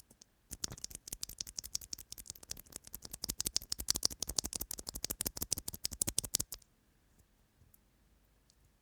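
Fast typing on a NuPhy Air75 V2 mechanical keyboard: a rapid run of crisp key clicks, about ten a second, that stops suddenly about six and a half seconds in.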